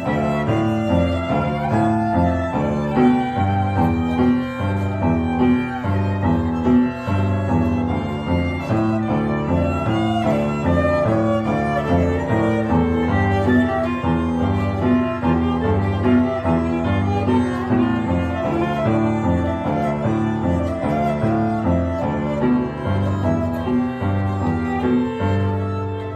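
Live violin bowing a melody over upright piano accompaniment, the piano's chords changing in a steady rhythm.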